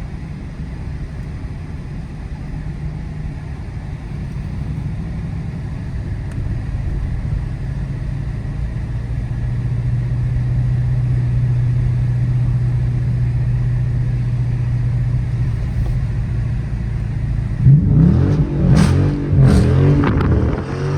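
Dodge Charger R/T's 5.7 HEMI V8 running under steady load, its drone slowly growing louder. Near the end it is revved up and down several times, with sharp exhaust pops.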